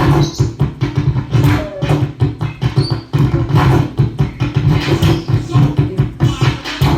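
Experimental turntable noise music: a loud, dense low hum chopped by rapid irregular clicks and scratchy crackle, with a few short high squeaks.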